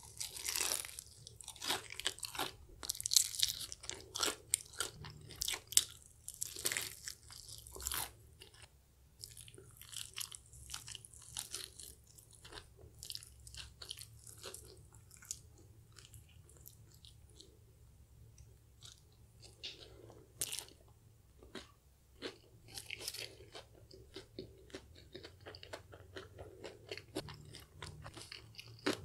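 Close-miked eating sounds of crispy KFC fried chicken being bitten and chewed. There is a run of loud, crunchy bites through the first eight seconds or so, then softer chewing with a few more crunches later on.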